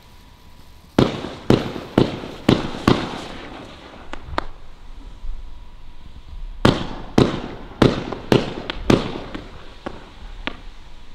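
Celtic Fireworks' Serenity 35-shot, 25 mm firework cake firing: a volley of about five sharp reports half a second apart about a second in, a couple of weaker pops, then a second volley of about five reports from about six and a half seconds in and a last one near the end.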